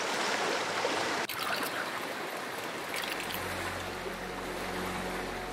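Steady rushing of a stream, with a brief break about a second in; low sustained notes of background music come in about three seconds in.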